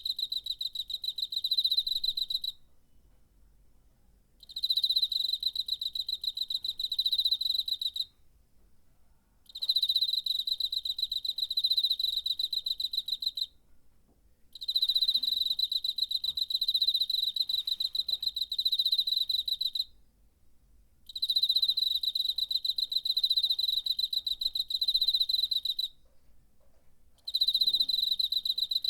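A cricket singing: a high, pulsing trill rubbed out by its wings, in bouts of several seconds broken by short pauses, about six bouts in all.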